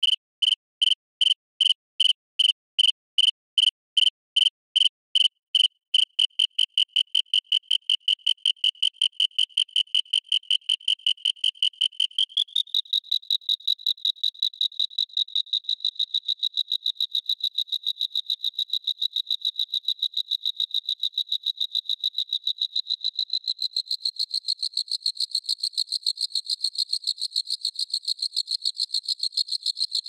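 Synthesized cricket chirp from a Native Instruments Absynth patch layering FM, ring-mod and wavetable oscillators with reverb. Clean chirps near 3 kHz pulse evenly at about two and a half a second, then about six seconds in they speed up into a fast, continuous trill. Around twelve seconds in the pitch steps up, and near the end the sound grows brighter and raspier as the macro controls are moved.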